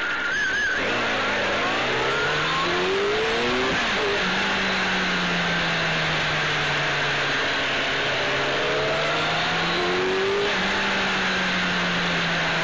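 Honda CBR600F's inline-four engine pulling up through the revs for about three seconds, then running at a steady cruise, heard from a camera mounted on the bike under heavy wind rush and road noise.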